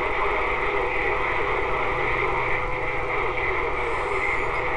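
Texas Ranger TR-696F CB radio's speaker putting out steady static and band noise on channel 6 during skip conditions, with a faint steady tone running under the hiss.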